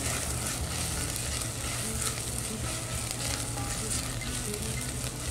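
Chopped onion sizzling steadily as it fries in hot olive oil in a pot, stirred with a spoon while it browns.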